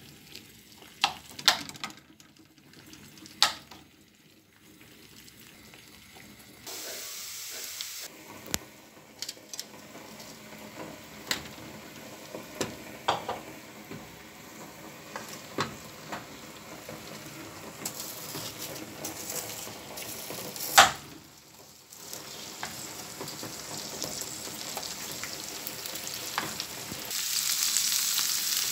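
Chopped onion and herbs frying in oil in a nonstick pan: a steady sizzle starts about seven seconds in and grows louder near the end. Light taps come first, then a utensil stirring and knocking against the pan, with one sharp knock about two-thirds of the way through.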